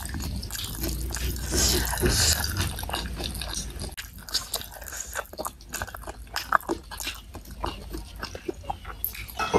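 Close-miked chewing and wet mouth sounds of someone eating boneless chicken feet in soy sauce with rice, full of many short clicks and smacks. Fingers pick food off the plate between bites.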